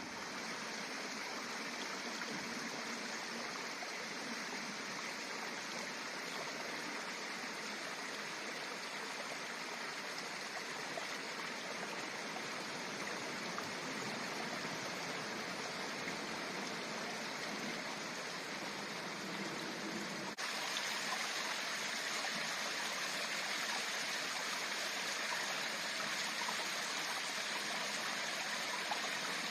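Steady rush of a mountain stream's running water, stepping up a little in level about two-thirds of the way through.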